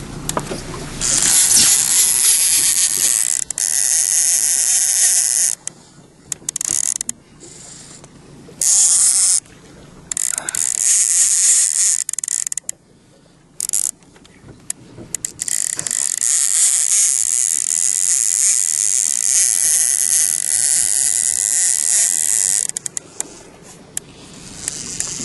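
Fishing reel ratcheting in several long stretches broken by short pauses.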